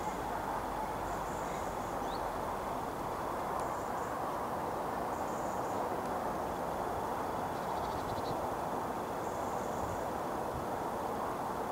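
Insects chirping in short high bursts every few seconds over a steady hiss of background noise.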